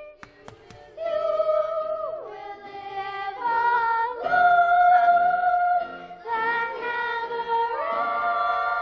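A children's choir singing, holding long notes that step up and down in pitch; the singing comes in about a second in, after a few sharp clicks.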